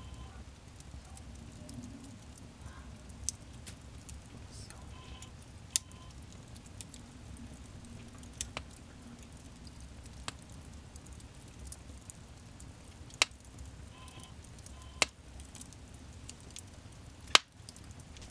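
Logs burning in an open fireplace: a steady low rumble of the flames with scattered sharp pops and crackles from the wood, the loudest pop near the end.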